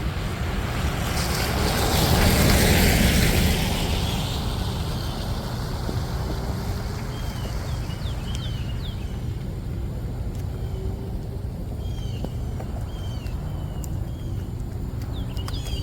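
A vehicle passing on a wet road: its tyre hiss swells and fades over about three seconds near the start. Then a steady low outdoor rumble, with birds chirping repeatedly.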